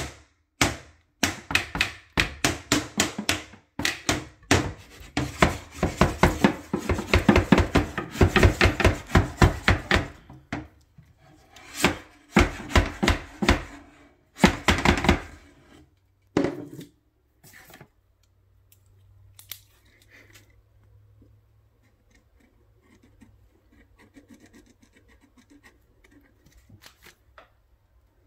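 A flat wooden paddle swatting cockroaches, smacking hard against a wooden cabinet shelf in rapid runs of several blows a second. After about fifteen seconds it slows to a couple of single hits, and then only faint scraping is left.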